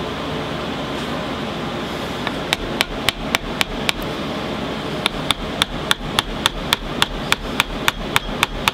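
Small hammer tapping brad nails the rest of the way into a paracord stockwhip handle: light, quick taps at about three a second, a short run and then, after a brief pause, a longer one.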